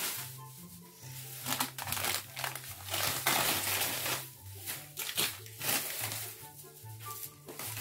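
A plastic trash bag crinkling in repeated bursts as rubbish is stuffed into it and handled, over background music with a stepping bass line.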